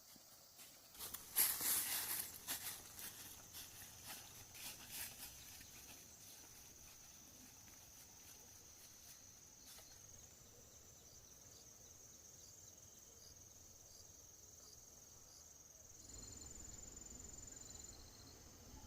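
Insects chirping in one steady high-pitched drone, with a second insect joining near the end. In the first few seconds, a run of louder rustling clicks and knocks.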